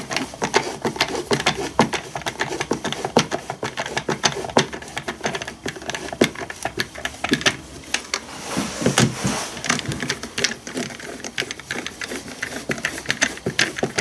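Hand screwdriver turning screws into a battery chainsaw's plastic housing: a fast, irregular run of small clicks and ticks as the screws thread into the plastic and the screwdriver is regripped, with a louder stretch about nine seconds in.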